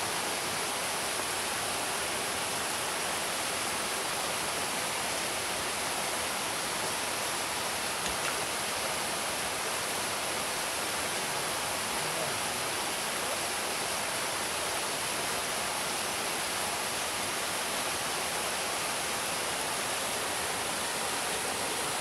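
Small waterfall pouring down a rock face into a pool: a steady, even rush of falling and splashing water.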